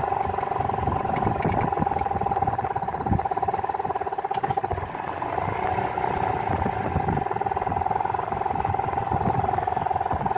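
Small boat's outboard motor running steadily, a constant whine over an uneven low rumble.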